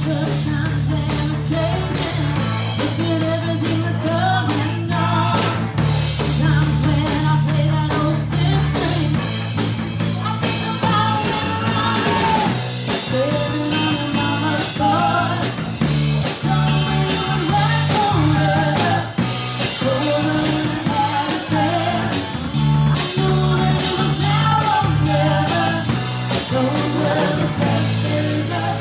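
Live rock band playing: a woman sings lead over electric guitar, electric bass and a drum kit keeping a steady beat.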